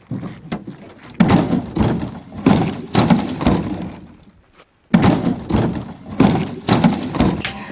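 Old wooden wardrobe being shoved and tipped over: a run of hollow wooden knocks, bumps and thuds from about a second in, then a second, louder run near the five-second mark.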